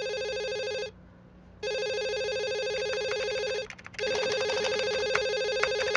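Office desk telephone ringing with an electronic ring: rings of about two seconds, separated by short pauses.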